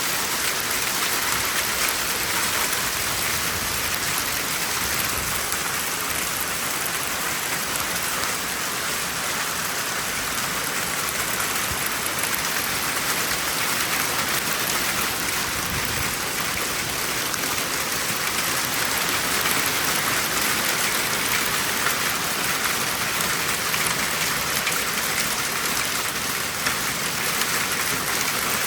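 Hail and heavy rain pelting down together in a dense, steady patter that swells slightly and eases again.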